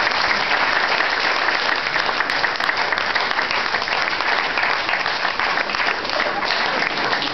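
Audience applauding steadily: dense, continuous clapping from a crowd.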